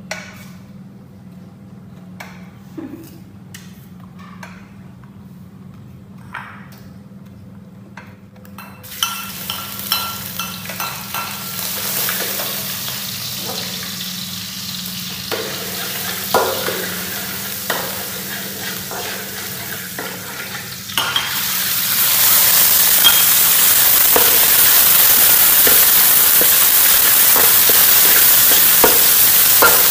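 Chopped chicken and garlic frying in oil in a wok, stirred with a metal spatula that scrapes the pan. After a few quiet seconds of small clicks, a soft sizzle starts about nine seconds in and becomes much louder about twenty-one seconds in.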